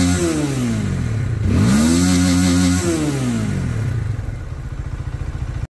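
Dayun DY-200 Titan's 200 cc fuel-injected motorcycle engine being revved: the engine speed falls away from one rev at the start, climbs again about a second and a half in, holds briefly, then drops back to a steady idle.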